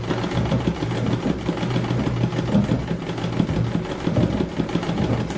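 Treadle sewing machine running steadily, its needle stitching free-motion embroidery through the fabric in a rapid, even clatter.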